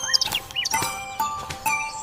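Light background music with a steady beat, about two strokes a second, with short bird chirps over it.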